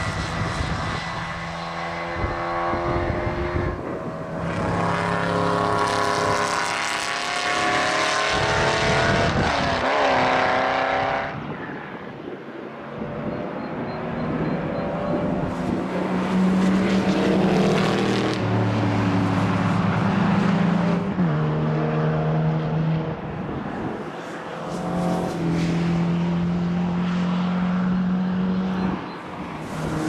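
Historic race cars passing one after another on a circuit, engines held at high revs with pitch falling sharply as each car goes by and at lifts or gear changes; a Mini 1300 passes first and a Cobra Daytona Coupé replica later. Wind noise buffets the microphone throughout.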